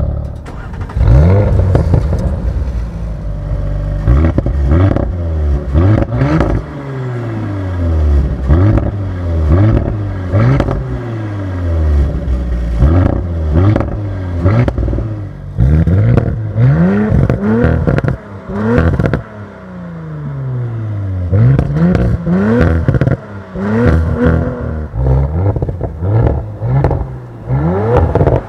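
Audi RS5 Competition Plus's twin-turbo V6 exhaust being revved over and over. Each rev climbs quickly and sinks slowly back, with crackles and pops as the revs fall.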